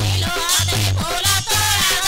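Odia sankirtana music: singing over a two-headed drum beating about four strokes a second and ringing hand cymbals.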